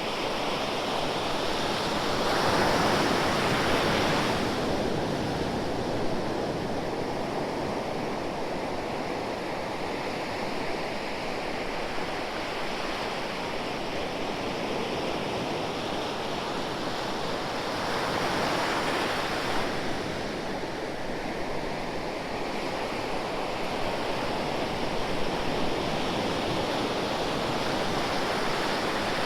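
Ocean waves breaking and washing on a shore: a steady hiss of surf with two larger waves swelling and breaking, one a few seconds in and another about two-thirds of the way through.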